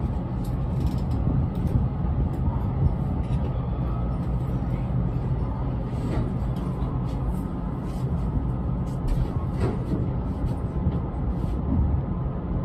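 JR West 225 series electric train creeping slowly up to couple onto another train, heard from inside the car as a steady low rumble and hum with a few faint clicks and creaks.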